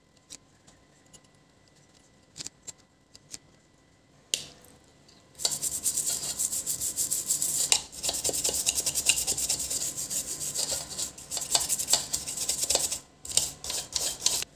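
A small brush scrubbing the solder side of a PC power-supply circuit board in rapid back-and-forth strokes, starting about five seconds in and going on in short spells near the end. A few light clicks come before it.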